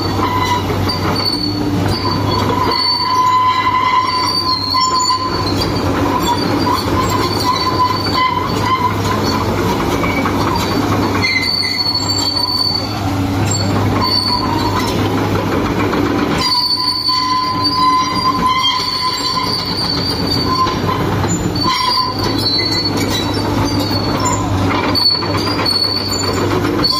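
Komatsu PC200-8 hydraulic excavator travelling and turning on its steel crawler tracks over concrete. The diesel engine keeps up a steady low hum while the tracks squeal high-pitched and creak, the squeals coming and going.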